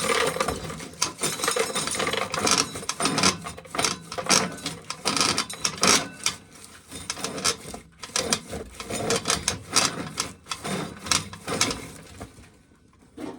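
Dense, irregular clattering and rattling of dry ear corn and kernels being worked at shelling time. It thins out near the end.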